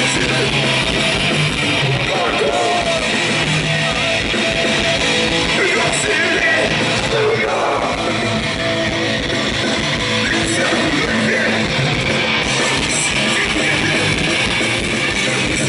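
Hardcore punk band playing live at full volume: distorted electric guitar, bass and drums under a shouted lead vocal.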